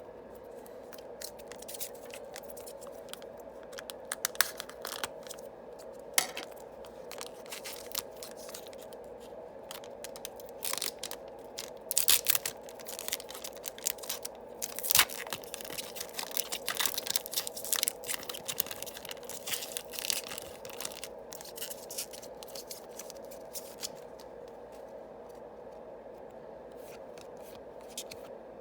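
A Yu-Gi-Oh booster pack wrapper being torn open and the cards handled: irregular crinkling, tearing and clicking, busiest in the middle and sparse toward the end, over a steady hum.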